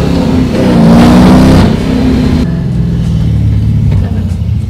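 LS3 6.2-litre V8 in a BMW E36, heard from inside the cabin, accelerating hard with its pitch climbing, then backing off about a second and a half in and running on lower and steadier.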